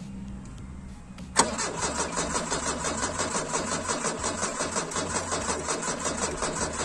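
VW Gol CHT 1.6 four-cylinder engine being cranked by the starter: a sharp click about a second and a half in as the starter engages, then an even, rhythmic cranking that never catches. The engine is not getting fuel, which the owners put down to a failing fuel pump.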